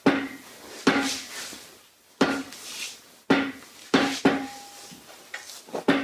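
Small hammer striking the rod of a cylinder liner puller, about seven sharp metallic blows at irregular intervals, each ringing briefly. The blows work a dry cylinder sleeve loose from a Perkins 4.236 diesel block.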